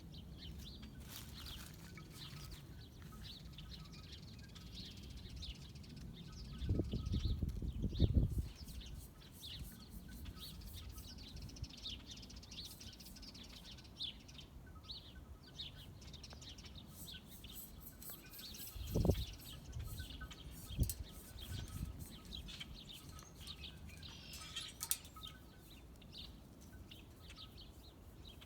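Faint birdsong: many short, high chirps from small birds throughout, with wind buffeting the microphone in low gusts about seven seconds in and again near nineteen and twenty-one seconds in.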